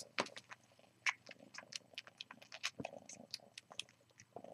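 A kitten suckling on its own fur, making quick, irregular wet sucking and smacking clicks, several a second.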